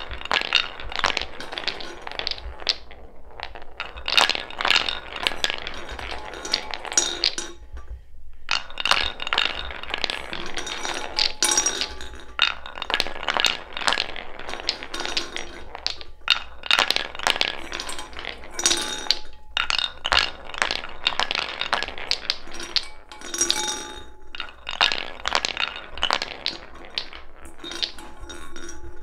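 Wooden balls rolling along a wooden marble-run track and clacking into the line of balls already queued in its spiral: a dense, irregular clatter of clicks and knocks, broken by a few short pauses.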